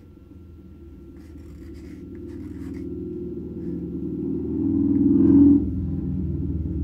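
A wooden stir stick scraping the last paint out of a small cup, with light scratching. Under it is a low hum that swells and then drops off sharply about five and a half seconds in.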